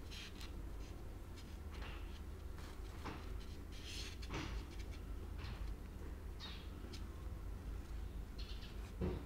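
Fingers rubbing and pressing over a wet plaster coating on a foam brick-wall piece, giving short, irregular scraping swishes every second or so over a low steady hum.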